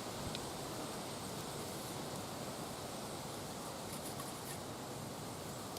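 Steady wind noise with a rustle of leaves, and a few faint light clicks.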